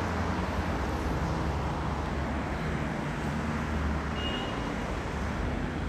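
Steady city street noise: a constant rumble of road traffic.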